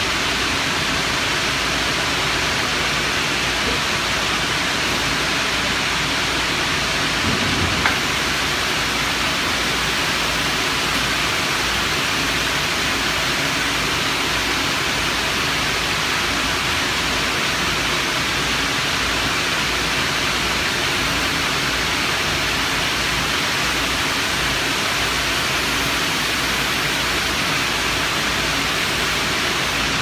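Steady rushing roar of industrial plant machinery and moving air, with a faint low hum under it and one short knock about eight seconds in.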